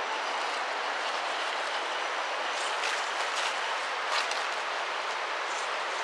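Steady rushing noise throughout, with a cluster of sharp crackles and ticks around the middle as the RC crawler truck's rubber tyres roll over dry leaves and twigs.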